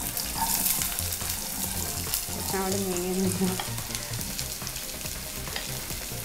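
Chopped onions going into hot oil in a pan and sizzling, with a spoon clinking and scraping as it pushes them off a glass bowl.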